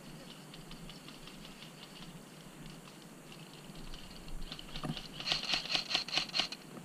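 Airsoft guns firing: a scatter of sharp, distant clicking shots, then a louder rapid burst of clicks from about five seconds in.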